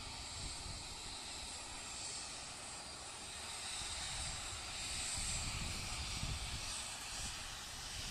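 Business jet's turbofan engines running as it rolls along the runway: a steady jet hiss and whine that swells louder about halfway through, over a low rumble.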